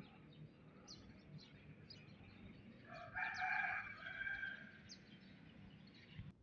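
A rooster crowing once, about three seconds in, for roughly a second and a half, over short high bird chirps repeating throughout.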